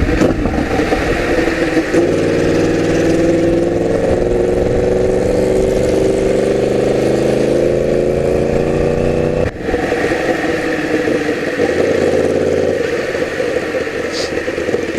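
Yamaha R1 inline-four engine on a full exhaust with no catalytic converter, running under way with the revs slowly falling, a short break in the sound about nine and a half seconds in, then running steadily again.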